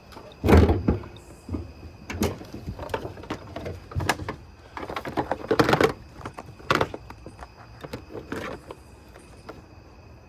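A series of irregular clunks and knocks from handling things in and around a car, the loudest about half a second in.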